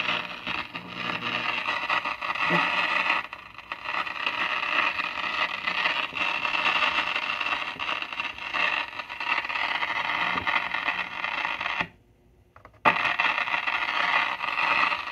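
A 1954 CBS 5-tube AM radio playing from its speaker, mostly a noisy hiss. Near the end it cuts out almost completely for about a second, then comes back. This is an intermittent fault that the owner puts down to an irregular contact, possibly at the tubes.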